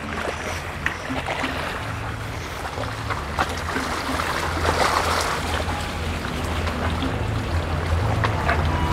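Motorboat engine running with a steady low hum while water sloshes and washes around it, with a louder rush of water about five seconds in.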